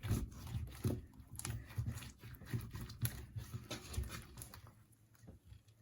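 Slime mixed with a crumbly mud mask being squeezed and stretched by hand: a run of irregular sticky clicks and small pops that die away about five seconds in.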